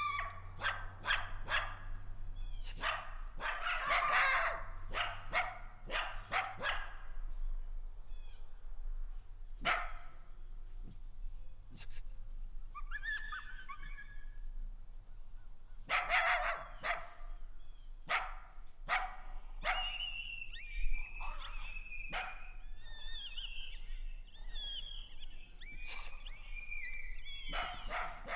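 Canine barking and yipping: quick strings of sharp barks in the first seven seconds, more around the middle, then high wavering yelps through the last eight seconds or so.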